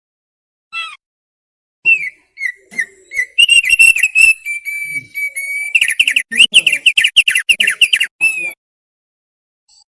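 Thick-billed heleia (opior paruh tebal) singing: one short call note, then about seven seconds of loud whistled song with held notes and rapid runs of quick notes, stopping abruptly.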